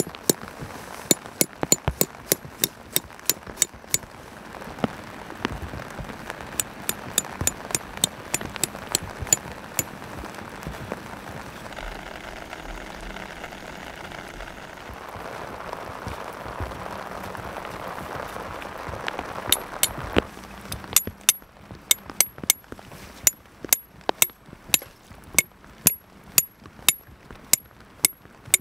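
Tent pegs being driven into waterlogged ground with a metal-headed peg hammer: runs of rapid, sharp, ringing strikes. They pause for a stretch in the middle, where only steady rain on the grass is heard, then start again.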